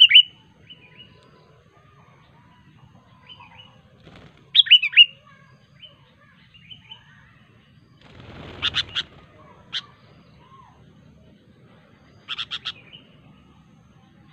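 Sooty-headed bulbul (kutilang) calling in short bursts of quick, sharp notes, about four phrases spaced a few seconds apart. A brief rustling noise comes just before the third phrase.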